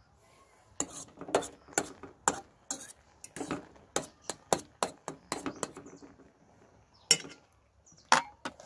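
Metal fork clinking against a stainless steel pan while stirring spaghetti. A quick, uneven run of sharp clinks lasts about five seconds, then two more clinks come about a second apart near the end.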